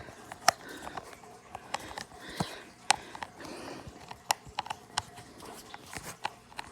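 Irregular sharp clicks and taps of hard plastic parts being handled and fitted together, the battery cover of a baby swing being put back on.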